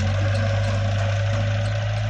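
Diesel engines running steadily at a constant pitch: a KATO crawler excavator working, with a tractor idling beside it.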